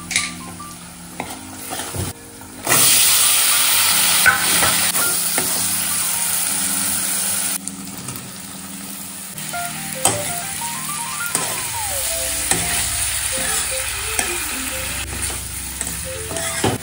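Food frying in hot oil in a kadai, sizzling while a metal spatula stirs and scrapes. The sizzle turns much louder about three seconds in and drops back about five seconds later. Soft background music with a simple stepped melody runs under it.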